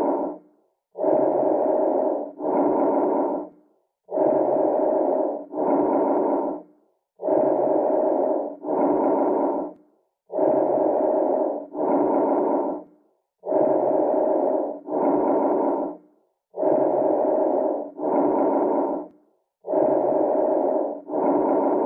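Normal lung breath sounds: about seven breath cycles, each an in-breath and an out-breath of similar length with a brief pause between them.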